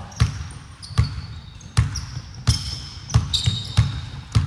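Basketball being dribbled on a hardwood court, a bounce roughly every three-quarters of a second, with short high squeaks of sneakers on the floor between the bounces.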